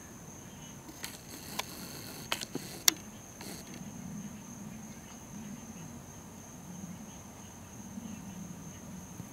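A steady, high-pitched insect drone runs throughout. A few sharp clicks or knocks come between about one and three seconds in, the loudest near three seconds.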